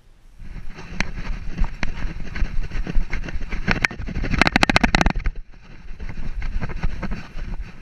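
Handling noise from a GoPro strapped to a running poodle's back: the camera and its harness knocking and rattling against her, with a quick run of rapid clicks a little past the middle.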